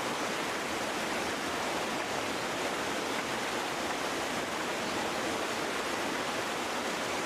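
Fast floodwater torrent rushing, a steady, unbroken noise of flowing water.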